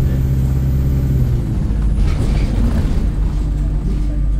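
Bus engine and road rumble heard from inside the moving bus. A steady engine drone changes about a second and a half in, giving way to a rougher rumble, and a fainter hum comes in near the end.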